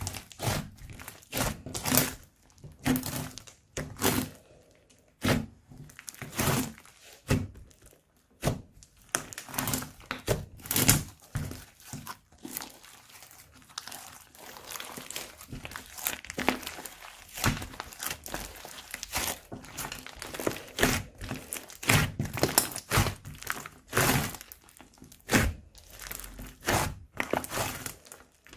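Slime being squeezed and poked by hand, giving irregular sticky pops, crackles and crinkles with brief pauses.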